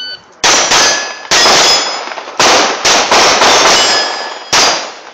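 A .22 Ruger pistol fired in a quick string of about ten sharp shots at steel plates, with the plates ringing briefly after hits. It starts right after a short electronic beep from the shot timer.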